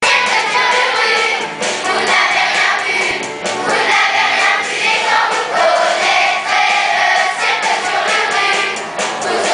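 Children's choir singing together, many young voices at once; the song cuts in suddenly at the start.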